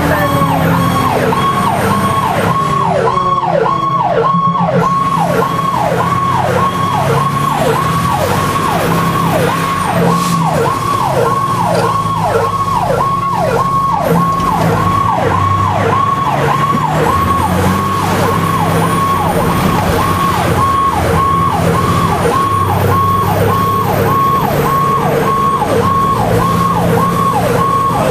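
Fire engine's electronic siren in a fast yelp, about two cycles a second, heard from inside the cab over the truck's engine rumble. A slower gliding siren tone falls away in the first couple of seconds.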